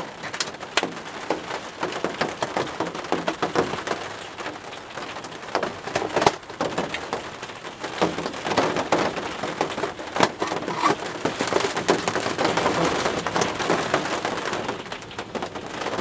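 Rain pattering on a polycarbonate greenhouse roof, a dense run of small ticks, along with clicks and rustles of the plastic bird-feeder roof and hopper being handled.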